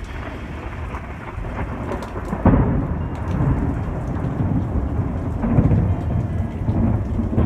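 Heavy rain falling steadily during a thunderstorm. About two and a half seconds in, a sudden clap of thunder breaks out and rolls on as low rumbling.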